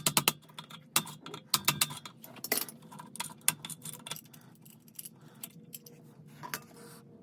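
Irregular metallic clicks and clinks of hand tools and metal pipe fittings being handled, densest and loudest in the first few seconds, then sparser.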